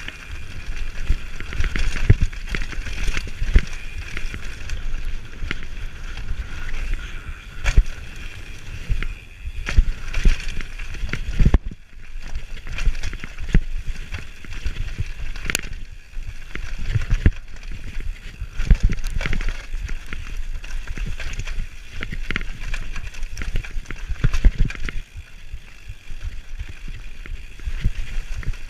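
Mountain bike rolling fast down a dirt forest trail: steady tyre and trail noise with frequent short knocks and rattles as the bike goes over bumps.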